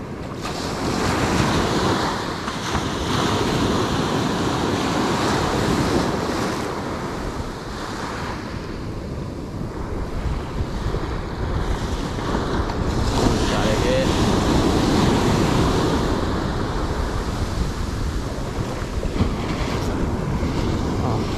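Small surf breaking and washing up on a sandy beach, swelling and easing over several seconds, with breeze buffeting the microphone.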